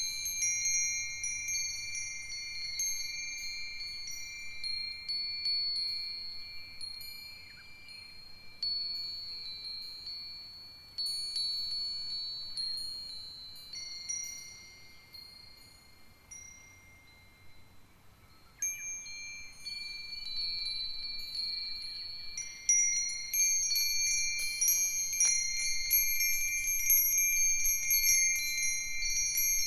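An ensemble of five Japanese wind chimes (Myochin fire-chopstick chimes, Nambu cast-iron, Nousaku and sanukite stone chimes) ringing in the breeze, with clear, long-ringing high tones struck at irregular intervals. The ringing thins to a few faint strikes about halfway through, then picks up again, busier and louder toward the end as the wind strengthens.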